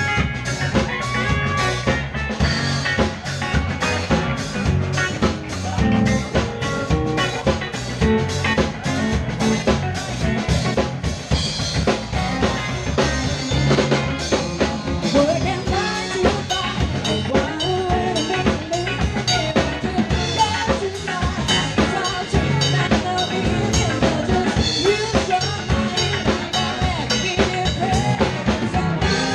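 Live band playing: a drum kit keeps a steady beat under electric guitar.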